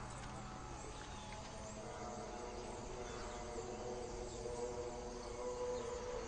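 Quiet background film score of long held notes, several tones sounding together, shifting to a new chord about two seconds in and swelling slightly near the end.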